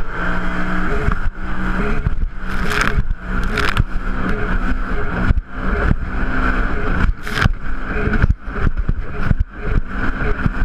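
Personal watercraft (jet ski) engine running, its pitch shifting with the throttle, with several short, loud rushes of noise over it.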